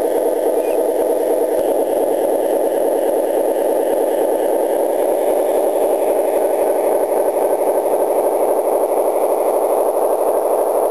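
Garden-scale model diesel locomotive running with its train: a steady, fluttering engine-like drone.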